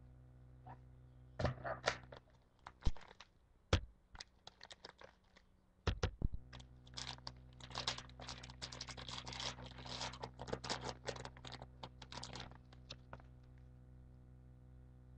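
Trading-card pack wrapper being torn open and crinkled: a few sharp clicks and knocks, then several seconds of scratchy tearing and crinkling.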